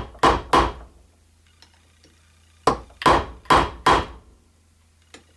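Hammer blows setting a copper rivet in jewellery: a quick run of three strikes at the start, a pause, then four more evenly spaced strikes, each a sharp knock with a brief ring.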